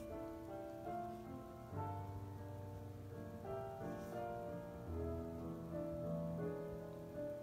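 Background music: solo piano playing a melody of held notes that change about every half second to a second.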